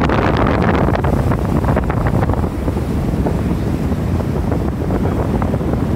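Loud wind buffeting the microphone on the deck of a moving cruise boat: a dense, low rushing noise whose higher hiss eases after about two seconds.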